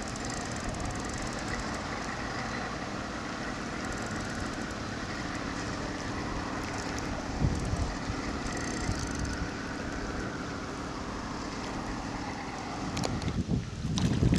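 Steady rushing outdoor background noise. Near the end a hooked carp thrashes and splashes at the surface close to the bank, a run of loud, irregular splashes.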